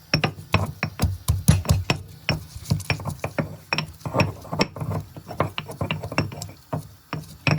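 Pestle pounding garlic cloves in a mortar: a rapid, uneven run of sharp knocks, about three to four a second.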